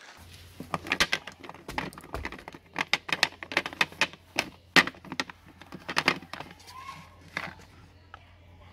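Hard bars of soap being set down and shifted around on a ceramic plate: a string of irregular clacks and knocks, with a few louder ones near the middle.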